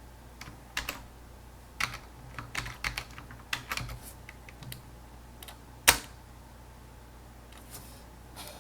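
Keys typed on a computer keyboard in irregular bursts of clicks, with one sharp, louder keystroke about six seconds in, then only a few stray taps.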